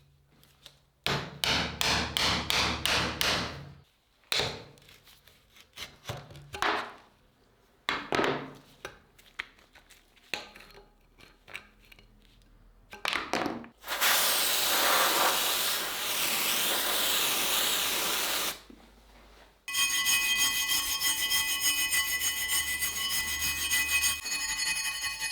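Workshop tools working an old rusty cleaver: a run of quick scraping strokes, then scattered knocks and scrapes. About two-thirds of the way in a harsh steady grinding sets in. A motor-driven tool follows with a steady whine.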